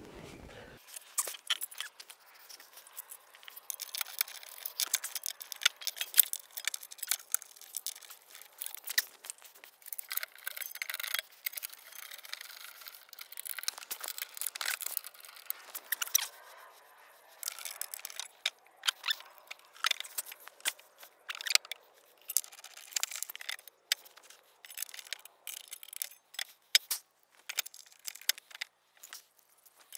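Ratchet wrench and socket driving the bolts of a jacking rail into a car's underside, with metal tools clinking: many irregular clicks and ticks, often in quick clusters.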